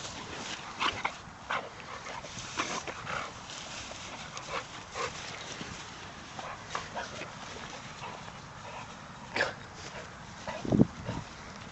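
Bullmastiff making short, scattered noises as she rolls and leaps in long grass, with one louder, deeper sound near the end.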